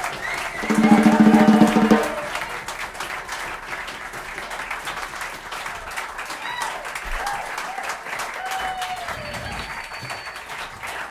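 Audience applauding, with one loud held cheer from a single voice lasting about a second near the start. Scattered shorter whoops follow over the clapping.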